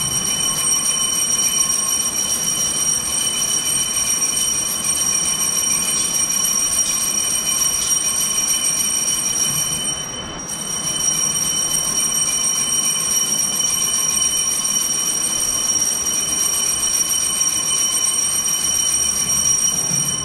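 Altar bells shaken in a continuous high, bright ringing for about ten seconds, a brief break, then ringing again for about ten seconds more: the Mass bells marking the elevation of the host and then of the chalice at the consecration.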